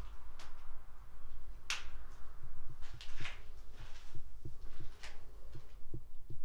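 Footsteps on a gritty concrete floor strewn with debris: soft thuds about twice a second, with sharp crunches and scrapes of grit underfoot.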